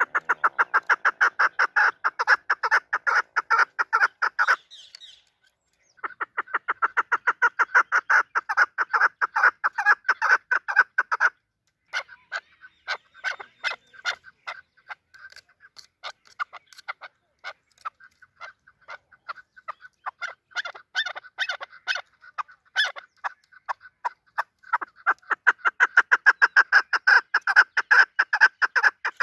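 Chukar partridge calling: long runs of rapid, repeated chattering notes, with a brief pause about five seconds in and sparser, more spaced notes through the middle before the rapid series picks up again near the end.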